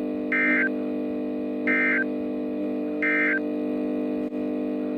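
Emergency Alert System SAME end-of-message data tones: three short, shrill two-tone digital bursts about a second and a half apart, marking the end of the alert message. A steady low drone runs underneath.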